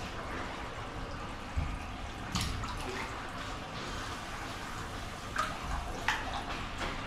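Water splashing in a fish tank as large fish feed on chicken: a steady watery background with several short, sharp splashes.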